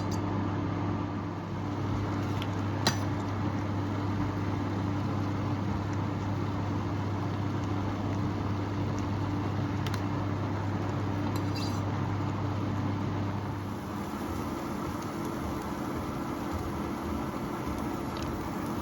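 A steady motor hum over a hiss that cuts off about fourteen seconds in, with a few light clinks of kitchenware.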